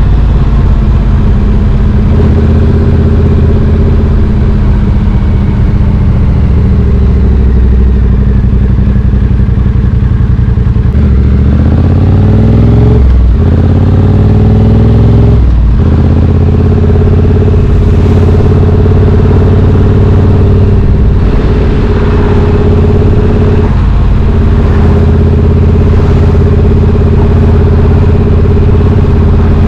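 Triumph Street Twin 900's 900 cc parallel-twin engine running through British Customs slash-cut exhaust tips, holding a steady note. About halfway through it revs up, with two brief breaks in the sound like gear changes, then settles back to a steady run.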